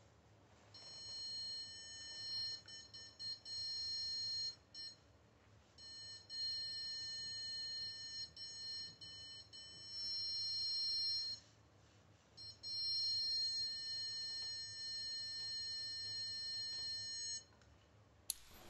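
Handheld electronic stud finder sliding across drywall and sounding its high-pitched alert tone three times, each tone held steady for about four to five seconds, which signals that it is over a stud.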